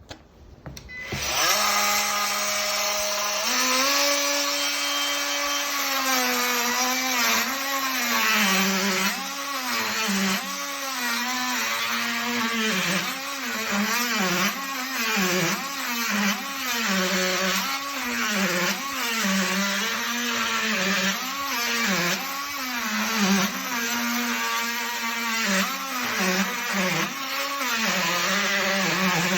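Cordless oscillating multi-tool started about a second in. It runs briefly at a steady pitch and steps up in speed. Then it is pushed into a cut, its pitch dropping under load and recovering again and again, about once a second.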